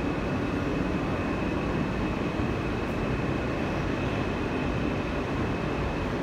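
An R160 subway car running between stations, heard from inside the car: a steady rumble of wheels on rails with a thin high whine held throughout.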